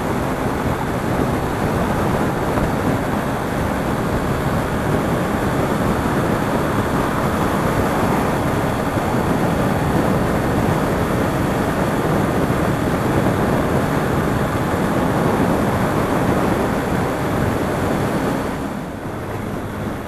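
Wind rushing over the microphone of a motorcycle riding at highway speed, a dense steady noise with the bike's engine and road noise underneath; it eases a little near the end.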